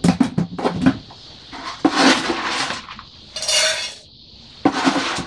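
A cat food dish clinking and dry kibble rattling as fresh food is poured out. There are sharp clinks in the first second and again near the end, and two short rattling pours in between.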